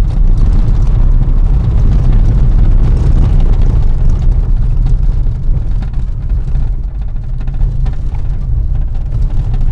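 Road noise inside a moving car: a loud, steady low rumble of tyres and engine.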